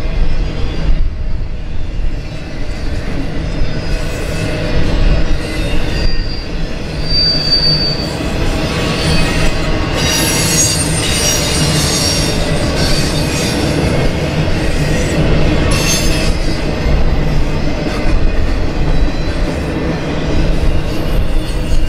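Intermodal freight train's flatcars carrying semi-trailers rolling past, a steady rumble of steel wheels on rail. High-pitched wheel squeals come and go over it, a thin one about seven seconds in and the strongest from about ten to thirteen seconds in.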